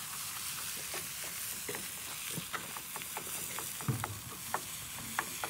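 Diced venison frying with a steady sizzle in a skillet and pot on a grill, while a wooden spoon stirs and scrapes it, heard as scattered light taps against the pan.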